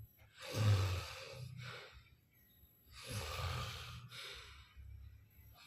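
A person asleep and snoring, with two long snoring breaths about half a second and three seconds in, and quiet gaps between them.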